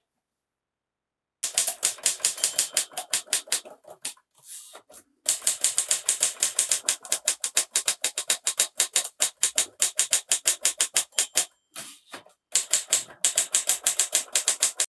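Typewriter keys struck in fast runs of about eight sharp clacks a second. The typing starts about a second and a half in and breaks off briefly twice.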